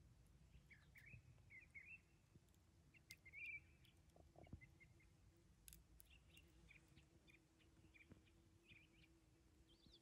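Faint forest birdsong: scattered short chirps and trills from small birds, heard through near silence.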